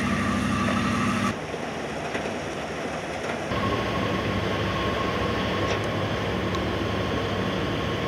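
Steady rumble and hum of warship diesel engines running. The sound changes abruptly about a second in and again about three and a half seconds in, and from then a steady high whine runs over the rumble.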